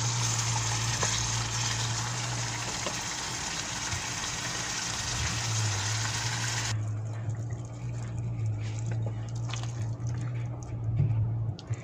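Chicken gravy sizzling and bubbling in a pan on the stove, an even hiss that cuts off suddenly about seven seconds in. After that, a spatula scrapes the gravy from the pan onto rice in short scrapes and clicks. A low steady hum runs underneath throughout.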